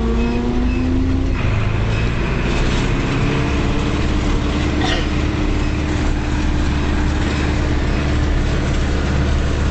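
Zetor tractor's diesel engine running steadily while the tractor travels on the road. Its note shifts about a second and a half in, then holds an even pitch.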